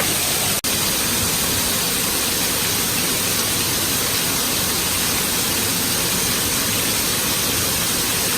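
Waterfall pouring close by: a loud, steady rush of falling water, with a split-second break just after the start.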